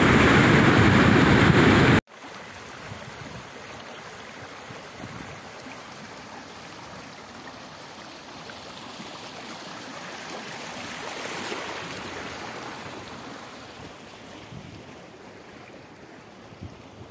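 Muddy rainwater runoff rushing over the ground, loud at first; about two seconds in it drops suddenly to a quieter rush that swells briefly and then fades.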